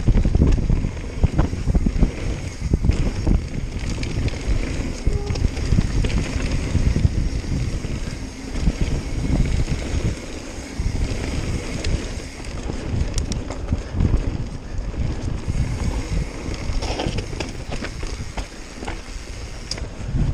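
Mountain bike riding fast down a dirt forest trail: wind buffeting the microphone over a low rumble of tyres on dirt, with frequent short clatters and knocks as the bike runs over rough ground.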